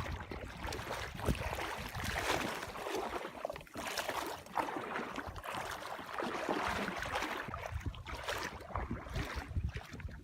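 Shallow water sloshing and splashing in uneven swells, with wind buffeting the microphone at times.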